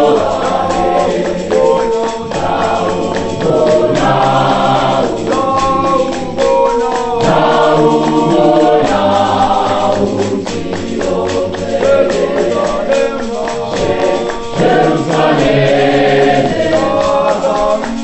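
Choir singing gospel music in several voice parts, with sustained sung chords that shift continuously.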